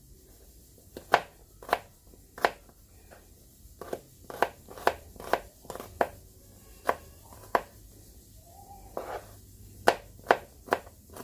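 A kitchen knife cutting tomatoes into small pieces on a cutting board: sharp, separate knocks of the blade on the board at an uneven pace of about one or two a second.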